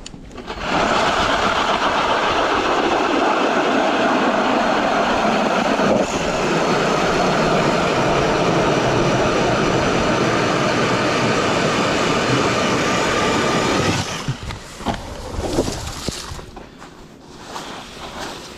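ION 10-inch electric ice auger running steadily as it drills a hole through the ice, a loud even whir of motor and cutting, with a brief dip about six seconds in. It stops about fourteen seconds in, and quieter scrapes and knocks follow.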